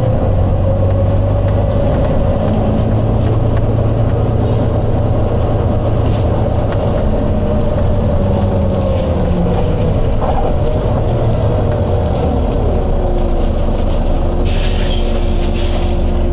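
Volvo B9TL double-decker bus's six-cylinder diesel engine running, its note shifting in pitch as the bus moves. A thin high whine rises for a couple of seconds, then a short burst of air hiss, about a second long, comes near the end as compressed air is released from the brakes or suspension.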